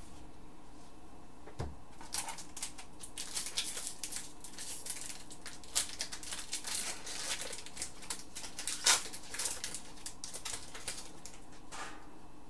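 Hockey trading cards and their foil pack wrapper being handled: a run of crackly rustles and small clicks, with a soft knock at the start and a sharper crackle about nine seconds in.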